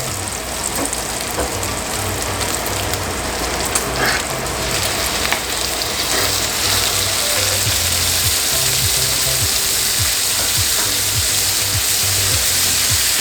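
Diced bacon and chicken frying in bacon grease in a pan, with steady sizzling that grows louder about halfway through and a couple of light clicks.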